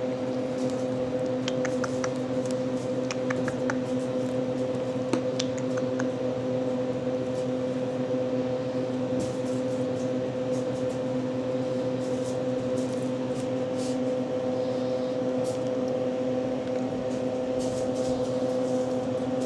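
Steady machine hum made of several fixed tones, with a few faint clicks and ticks over it.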